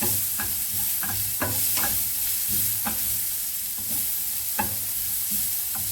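Grated carrot sizzling in a little oil in a frying pan, with a utensil clicking and scraping against the pan every half second or so as it is stirred.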